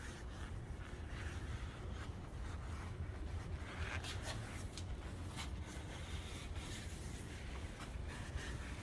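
Cloth rubbing and wiping oil over the sanded surface of a wooden cutting board in soft, scuffing strokes, over a steady low hum.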